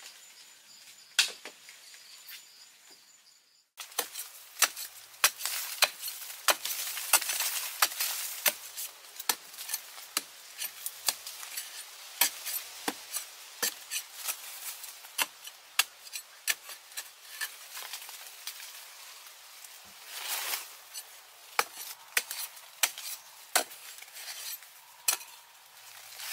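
Insects trilling steadily for a few seconds, then a long series of sharp, irregular strikes, about one to two a second, as a digging tool chops into the hard dry earth of a termite mound, with crumbling and scraping of broken clods between blows.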